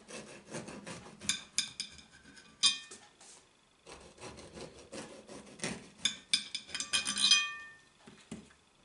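Kitchen knife sawing through a crusty almond-flour keto loaf, a dry rasping in quick back-and-forth strokes, with a brief pause a little before halfway.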